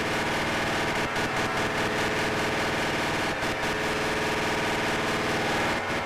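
Buchla and Eurorack modular synthesizer soundscape: a dense, steady drone of many held tones under a wash of hiss, with a few brief flutters.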